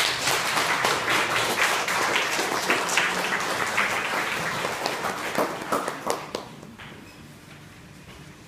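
Audience applauding, a dense run of hand claps that dies away about six seconds in.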